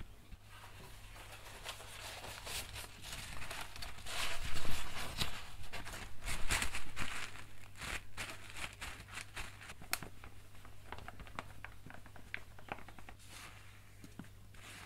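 Hands handling a tray of wet raw pond smelt (wakasagi), then kitchen paper rustling and crinkling as it is laid over the fish and pressed down to blot them dry. The rustling is loudest in the middle, and many small taps and clicks follow.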